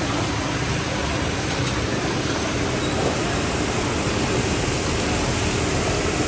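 Steady, even sizzle of fish deep-frying in a large wok of hot oil.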